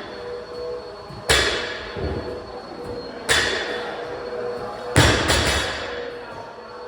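Four sharp knocks, each ringing on briefly: three about two seconds apart, then a quick double knock.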